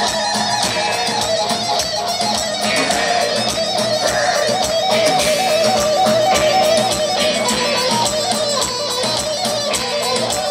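Live band dance music: a quick, steady beat under a wavering, trilling melody.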